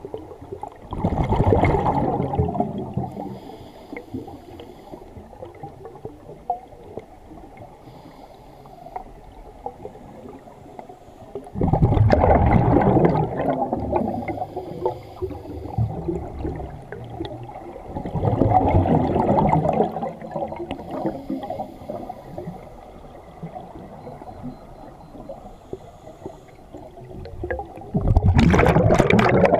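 Scuba diver breathing out through a regulator underwater, the exhaled air bubbling out in four bursts of about two seconds each, six to ten seconds apart, with quieter stretches between.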